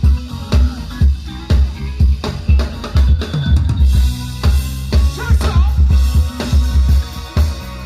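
A live funk band playing an instrumental passage: drum kit with a kick about twice a second, snare and rimshot hits, and a bass line, with a bending lead line about five to six seconds in.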